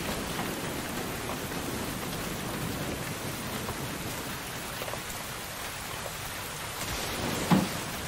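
Heavy rain falling steadily on a street. A single loud thump about seven and a half seconds in.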